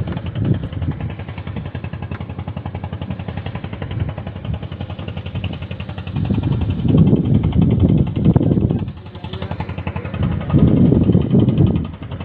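The small engine of a raft fishing boat running with a fast, even chugging pulse. It grows louder twice: from about six seconds to nine, and again from about ten and a half to twelve.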